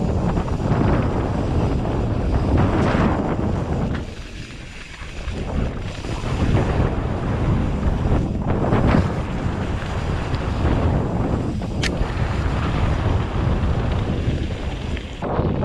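Wind buffeting the microphone over the noise of a mountain bike's tyres on dirt and gravel during a fast trail descent, easing briefly about four seconds in. A single sharp click comes near the twelve-second mark.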